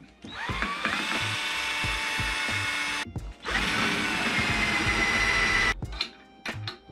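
A drill boring into a seized shift rod in a shifter housing, run twice for about three and two and a half seconds. Each run starts with a rising whine as the motor spins up, then runs steadily. A thin high whine comes through in the second run.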